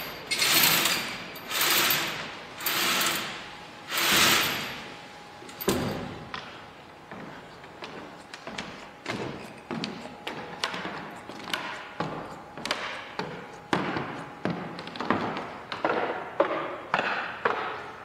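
A theatre's main stage curtain being hauled closed by hand on its rope and pulleys: five or six rushing pulls about a second apart. After about six seconds these give way to a run of light knocks and taps that come more often toward the end.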